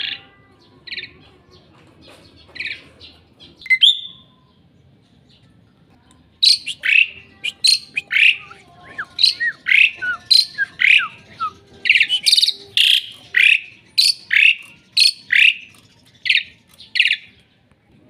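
Asian pied starling (jalak suren) calling loudly from its cage. A few scattered calls come first, then from about six seconds in a fast run of short calls and gliding whistles, about three a second.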